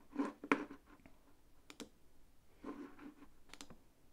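Faint, scattered clicks of computer keys being pressed, about half a dozen unevenly spaced taps, as the stream is switched to another camera.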